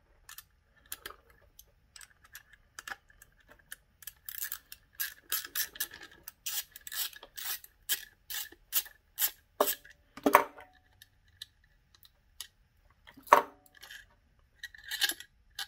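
Hand tool unscrewing the long through-bolts of a brushed DC gear motor, making a run of quick clicks at about three a second, then three louder metal knocks as tool and parts are set down on the bench.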